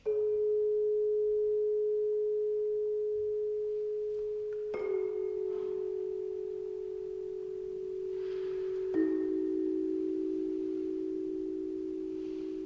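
Long, pure bell-like ringing tones, one after another: each is struck and left to ring on, with new ones coming in about five and nine seconds in, each a little lower than the one before.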